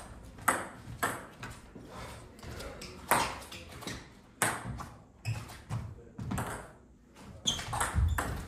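Table tennis ball clicking off the bats and the table in a rally, sharp knocks at uneven intervals that come faster in the second half.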